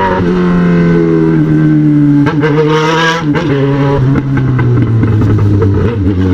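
Yamaha XJ6's 600 cc inline-four engine through a 4-into-1 aftermarket exhaust, running in gear. Its note sinks gradually and drops lower still in the last seconds as the bike slows.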